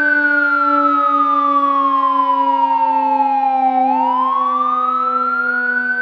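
Fire truck siren wailing: its pitch falls slowly, then rises again quickly about four seconds in, over a steady low drone.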